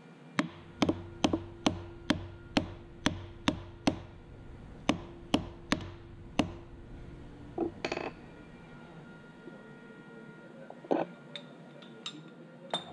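A hammer tapping on metal, about a dozen sharp strikes in quick succession, then a few scattered clinks near the end.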